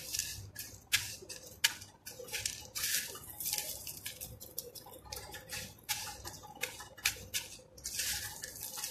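Crushed cornflakes crackling and rustling under the fingers as a chicken ball, dipped in beaten egg, is pressed and rolled in them on a paper plate, in quick irregular bursts.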